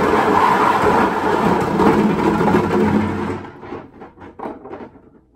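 Golf balls tumbling and rattling together inside a large carboy as it is shaken and turned, a dense continuous clatter for about three seconds. It then thins into a handful of separate clacks as the balls settle toward the neck.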